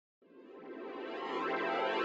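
Electronic intro music fading in: sustained synthesizer tones with sweeping filter movement, growing louder.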